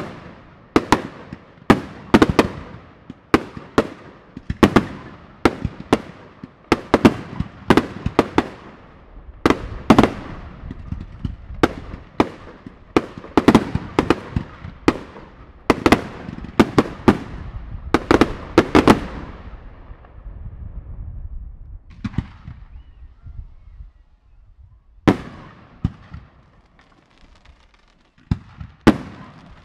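Fireworks going off: a rapid run of sharp bangs, about two a second, each trailing off with an echo. After about twenty seconds they thin out to a lull, with only a few scattered bangs near the end.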